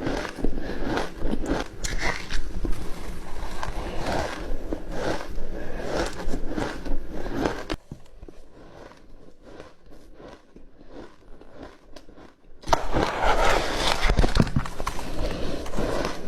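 Close-up crunching and chewing of ice, irregular crisp crunches that go much quieter for several seconds in the middle, then resume loudly.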